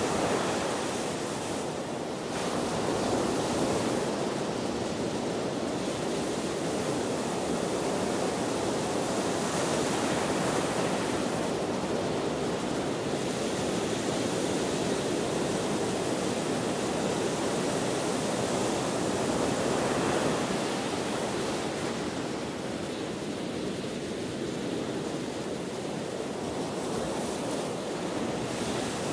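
Ocean waves breaking and washing on the shore in steady surf, swelling and easing every few seconds, with wind rushing over the microphone.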